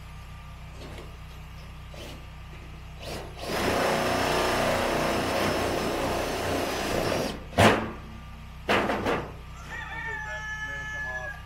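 A rooster crowing once, a long call of nearly four seconds beginning about three and a half seconds in. Two sharp knocks follow, and hens cluck in short pitched calls near the end.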